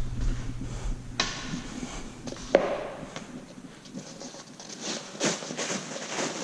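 Scattered light clicks and knocks of small metal engine parts being handled as the tappets are taken out of a Kohler Courage XT7 single-cylinder engine.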